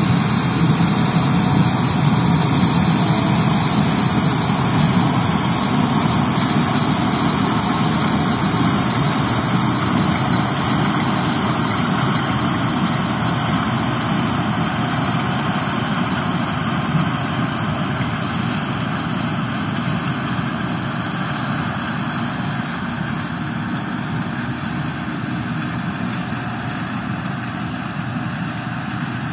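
Case IH 2388 Axial-Flow combine running as it harvests corn: a steady engine and machinery noise that slowly fades as the combine moves away.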